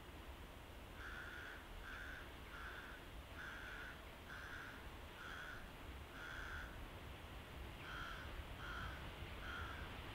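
A bird calling repeatedly: about ten short, harsh calls, a run of seven and then three more, over a faint low rumble.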